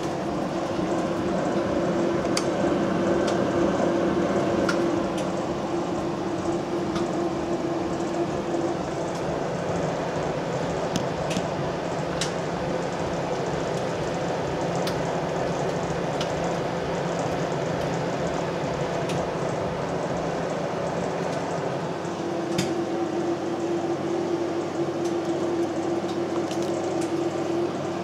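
700 W microwave oven running with its magnetron on, a steady hum over an even fan whir. The hum fades in the middle and grows strong again near the end.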